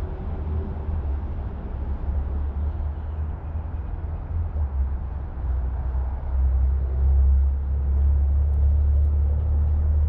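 Steady low rumble, growing louder about six seconds in.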